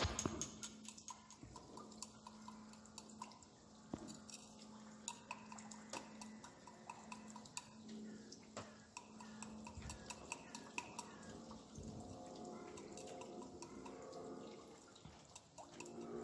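Quiet experimental soundtrack: scattered sharp clicks over a steady low hum, with faint sustained tones building in over the last few seconds.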